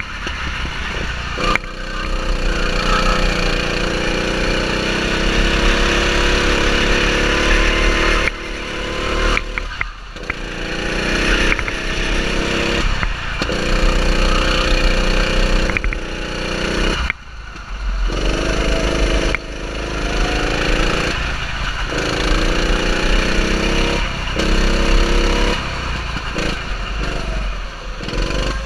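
Go-kart engine running hard on the track, its pitch rising and falling with throttle through the corners, and the level dipping sharply for a moment several times.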